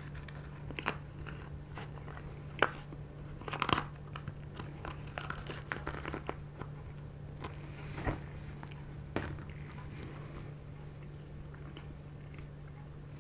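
Plastic spoon scraping and clicking in a foil cup of chocolate lava cake, with crinkling of the foil and close-up chewing. Irregular sharp clicks and short scrapes come in clusters, loudest a few seconds in.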